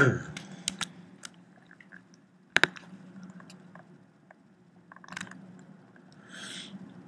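Computer mouse clicks: a sharp double click about two and a half seconds in and a few lighter clicks near five seconds, over a low steady hum, with a short soft rustle near the end.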